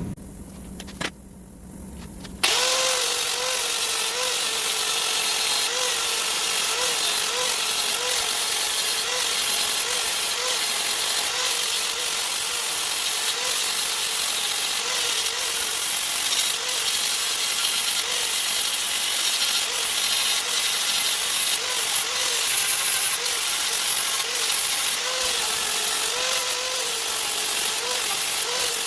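A power tool starts abruptly about two seconds in and runs steadily, its pitch dipping again and again as it is worked under load. A low rumble comes before it.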